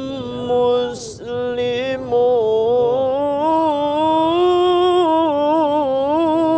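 A solo voice chanting Quran recitation in the melodic mujawwad style, holding long ornamented notes with a wavering vibrato. There is a quick break for breath about a second in.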